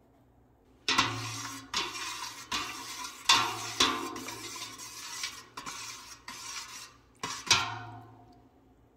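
Metal spoon stirring liquid in a stainless steel stockpot, clinking and scraping against the pot's sides in a string of sharp knocks, mixing the nickel plating solution. It starts about a second in and stops about a second before the end.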